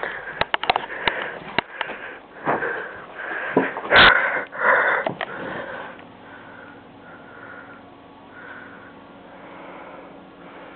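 Repeated sniffing close to the microphone: breathy puffs mixed with clicks, the loudest about four seconds in, then softer short sniffs every second or so.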